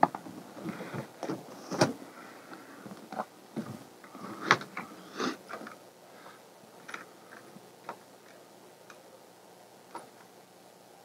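Handling noises at the back of a vehicle: a run of sharp clicks, knocks and rustles for about the first five seconds, then only a few faint ticks.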